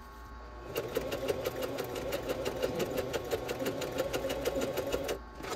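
Singer electric sewing machine running a zigzag stitch over a seam allowance to finish the raw edge, a rapid, even run of needle strokes. It starts about a second in and stops shortly before the end.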